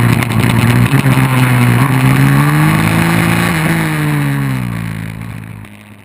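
150cc dirt bike's single-cylinder engine at racing revs, heard close from a camera mounted on the bike. The pitch rises slowly, drops sharply once near the middle and sinks again, then the sound fades out near the end.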